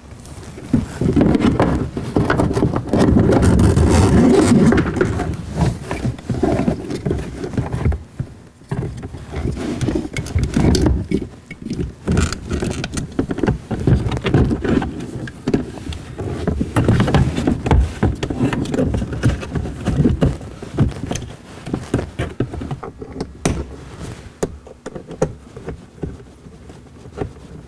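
Handling noise as a plastic panel is pressed into a car's interior trim panel and bolted on with automotive fasteners: irregular rubbing, scraping, clicks and knocks, heaviest a few seconds in.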